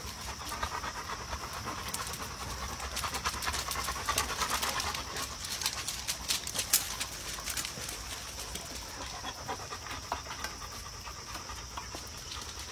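Labrador retrievers panting hard, in quick rhythmic breaths, with scattered small clicks and rustles over it.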